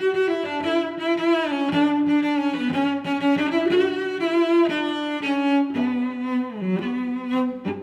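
Background music: a bowed-string melody in the cello range, with held notes that change every half second or so.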